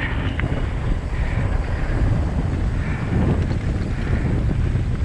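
Wind buffeting an action camera's microphone as a mountain bike rolls fast down a dirt trail, with the rumble of the tyres on packed dirt and gravel. A few faint ticks come through the steady noise.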